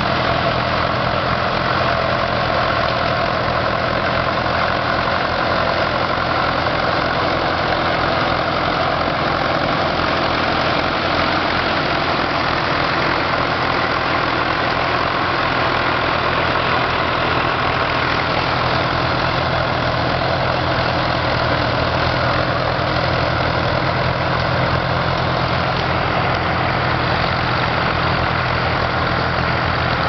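Doe Triple D tandem tractor's two Fordson diesel engines running steadily under load while pulling a plough.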